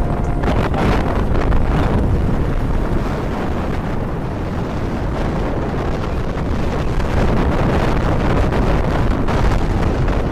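Wind buffeting the microphone of a moving motorcycle: a loud, steady rush strongest in the low end.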